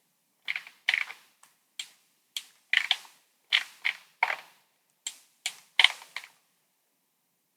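Computer mouse clicking: about a dozen sharp, irregularly spaced clicks, some in quick pairs, as parts are selected in CAD software. The clicking stops a little over a second before the end.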